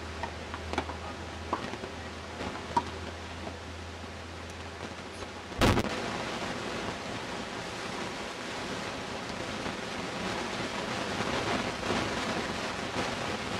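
Steady outdoor hiss and wind noise on a camcorder microphone, with faint scattered clicks. About halfway through comes one sharp knock, and a low hum stops at the same moment.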